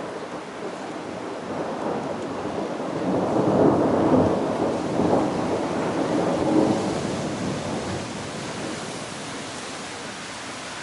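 Rolling thunder rumbling during a thunderstorm, swelling to its loudest about four seconds in and dying away, over the steady hiss of rain.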